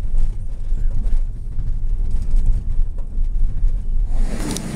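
Cabin noise inside a vehicle driving over rough desert ground: a loud, deep, uneven rumble of engine and tyres with scattered small rattles. About four seconds in, it gives way to a steadier hiss.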